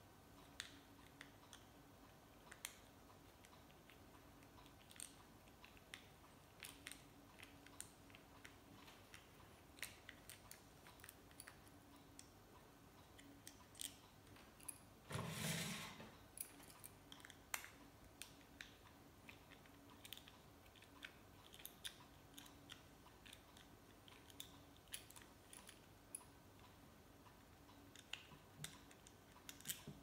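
Faint, scattered small clicks and taps of plastic and metal lighter parts being handled while a gas utility lighter is taken apart, with one louder rubbing noise about a second long halfway through.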